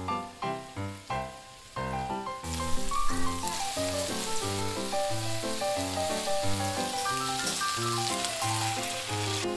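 Meatballs sizzling as they fry in a frying pan. The sizzle starts suddenly about two and a half seconds in and then runs steadily, over background music.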